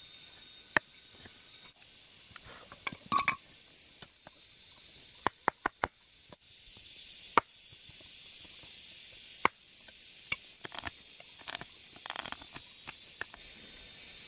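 Irregular sharp knocks and taps of bamboo being worked by hand. Single strikes are scattered throughout, with a cluster about three seconds in and a quick run of four about five seconds in, over a faint steady hiss.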